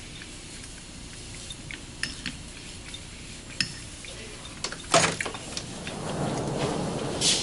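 Metal fork clinking and scraping against a plate while someone eats, a few light clicks spread apart. About five seconds in comes a louder knock, followed by a rustling noise that grows toward the end.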